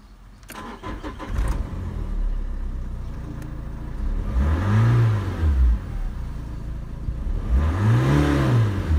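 Renault Laguna II's 1.9 dCi F9Q752 four-cylinder turbodiesel cranked by the starter and catching about half a second in, then idling. It is revved twice, rising and falling back to idle, once about four and a half seconds in and again near the end.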